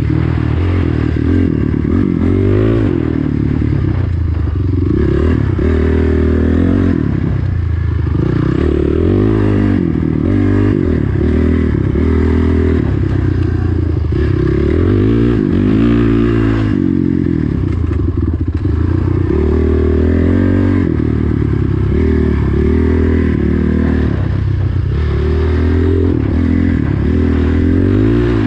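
Dirt bike engine under way, its revs rising and falling over and over as the throttle is worked and the bike shifts through the gears.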